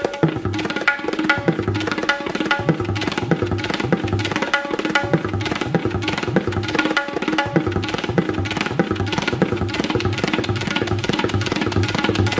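Sitar and tabla playing Hindustani classical music: fast, even plucked strokes on the sitar over a steady tabla rhythm with regular deep bass drum strokes.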